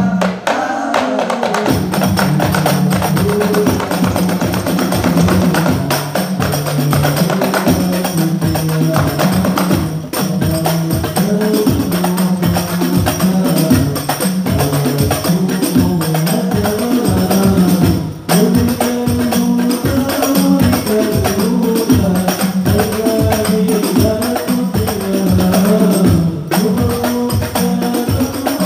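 A hadrah ensemble performing sholawat through a PA: several rebana frame drums beat a fast, steady rhythm while a lead voice sings the melody over it.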